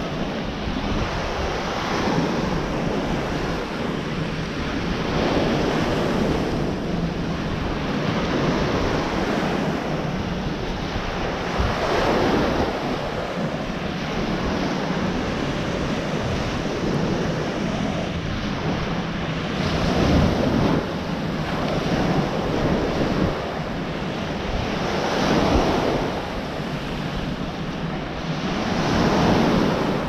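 Small ocean waves breaking and washing up a sandy beach, the surf swelling and falling back every few seconds, with wind buffeting the microphone.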